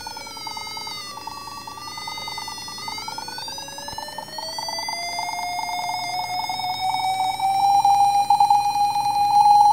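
Small speaker in a clybot C6 Arduino robot playing an electronic tone whose pitch follows the light falling on its light-dependent-resistor eyes. The pitch dips, then slides up over a few seconds and levels off as it grows louder.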